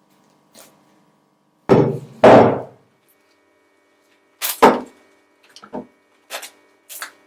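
Leftover slime being scraped out of a bowl: two loud scrapes about two seconds in, then several short knocks against the bowl.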